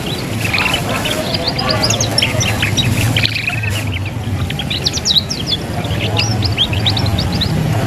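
Young domestic canary twittering (ngeriwik): quick runs of short, high chirps and trills, the rambling practice song of a young canary learning to sing. The runs come in two bursts with a brief pause in the middle, over a steady low background hum.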